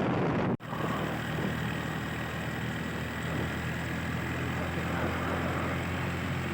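A motor vehicle's engine running steadily, a low even drone, after a brief cut in the sound about half a second in.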